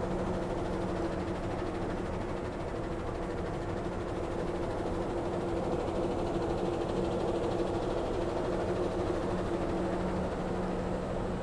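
A stationary diesel train idling: the steady hum of the diesel engines of the CC 206 locomotive and its generator car, with a few constant low tones.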